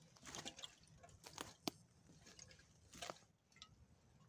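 Footsteps of a person in boots crunching irregularly over dry pine needles, twigs and stones, with one sharp click a little under two seconds in, the loudest sound.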